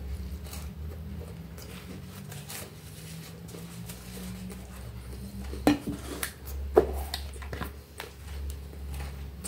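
A few sharp knocks and clicks from a Nesquik tin being handled and set down on the table, with light clatter of tableware. The two loudest knocks come a little past halfway through, about a second apart.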